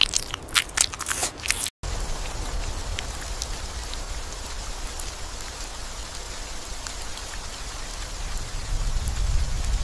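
Small crunching clicks of a small mammal nibbling at seeds for the first couple of seconds. Then, after a brief cut, a steady hiss with scattered faint ticks over a low rumble, which swells near the end.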